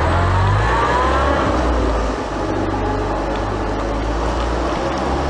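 A motor vehicle's engine running, rising in pitch over the first second or so, over a heavy low rumble.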